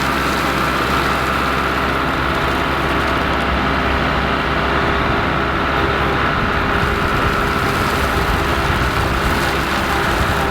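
Kubota MX5400 tractor's diesel engine running steadily.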